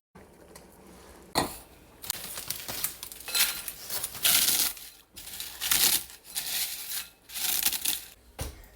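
Metal spoon stirring and scraping in a metal pot of chili, with irregular clinks against the pot, starting with a sharp knock about a second in.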